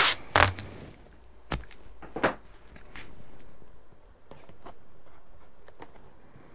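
Masking tape being pulled off the roll in two loud rasping rips at the start, then scratchy rubbing and light taps as it is pressed down onto cardboard.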